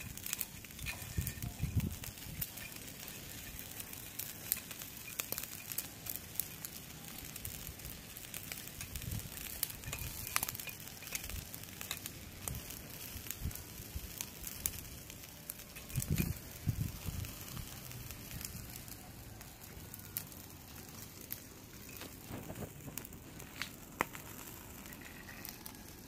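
Satay-marinated chicken feet grilling on a wire rack over glowing charcoal: steady sizzling and crackling with scattered sharp pops, and a few dull knocks.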